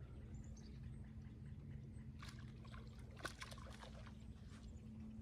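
Faint water lapping against a fishing boat's hull, with a steady low hum and a few light clicks in the middle.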